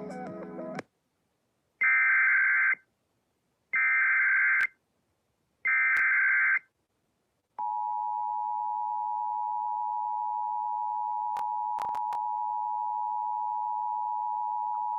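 Emergency Alert System SAME header: three short, harsh bursts of digital data tones about two seconds apart, coding a Special Marine Warning. Then comes the EAS two-tone attention signal, a steady dual-pitched tone held for about eight seconds.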